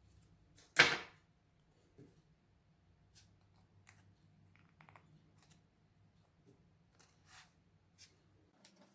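One loud, sharp snap about a second in, dying away quickly, then scattered faint clicks and taps from small objects being handled.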